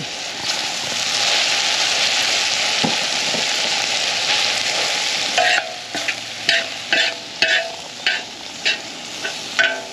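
Meat sizzling steadily as it fries on a steel discada disc. About halfway through, a metal spoon starts scraping and clinking against the disc as the meat is stirred, about two strokes a second.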